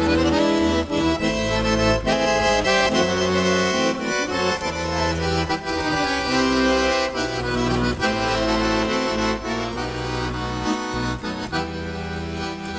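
Instrumental break of a Russian chanson song: a melody of held notes over a bass line, with no singing.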